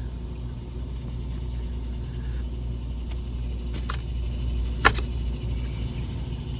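Steady low rumble, with a few light clicks and one sharper click near the end.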